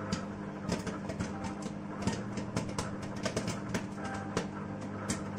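Microwave oven running with a steady low hum while popcorn kernels pop inside it in many quick, irregular cracks.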